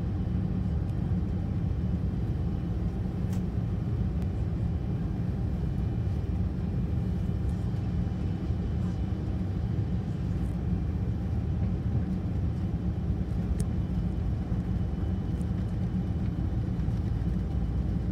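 Airbus A330-300 take-off roll heard from inside the cabin: a steady, deep rumble of the jet engines and the wheels on the runway, with a few faint clicks.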